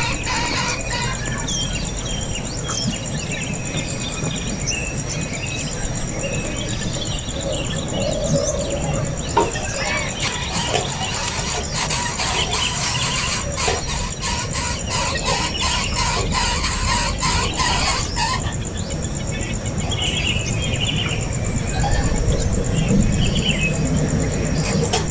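Nestling birds calling in short, shrill squeals and chirps, scattered irregularly, with a steady high buzz behind them.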